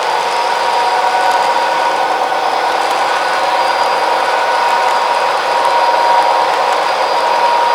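Model train running steadily: a constant electric-motor whine over a whirring hiss, with faint ticks.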